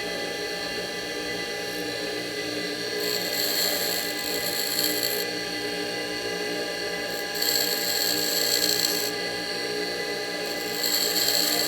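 A tool and cutter grinder runs with a steady whine while a small cutter is ground to a new shape. Three times, about 3, 7.5 and 11 seconds in, the wheel bites the tool and a harsher, louder grinding hiss rises for a second or two, then drops back to the motor's whine.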